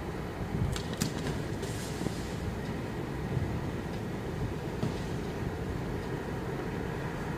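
Steady low rumble of a delivery lorry being unloaded, with a few sharp knocks and rattles of trolleys and cartons about a second in.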